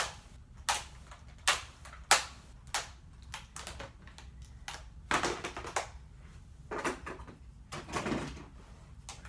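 Hard plastic toy guns clacking and knocking as they are handled, set down and picked up: a few sharp clicks in the first three seconds, then duller rummaging knocks.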